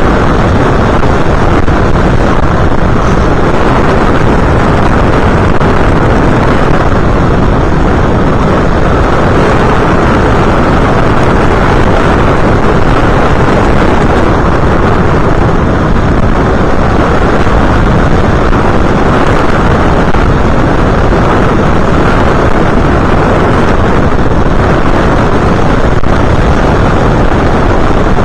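Loud, steady rush of wind over the onboard camera's microphone of an FPV aircraft in flight, unchanging throughout.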